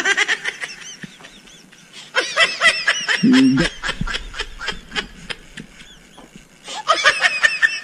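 Laughter in three bouts of quick, high-pitched ha-ha-ha pulses: a short one at the start, a longer one from about two seconds in, and another short one near the end.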